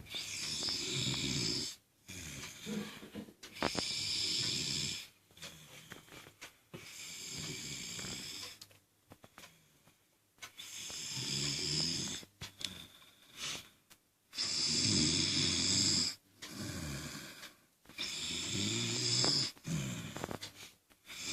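A man snoring in sleep after drinking alcohol: about six snores, one roughly every three and a half seconds, each lasting about a second and a half, with quieter breathing between.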